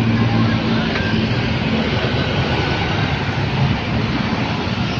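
Road traffic passing close by: small motor scooters droning past, with a van and a truck going by, engines and tyres mixed in a steady rush. An engine hum is strongest in the first second or so.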